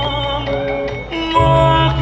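Balinese gong kebyar gamelan played by a women's ensemble: sustained ringing metallophone tones over deep gong notes. A brief lull just after the first second gives way to a loud new stroke about a second and a half in, with a deep pulsing low gong underneath.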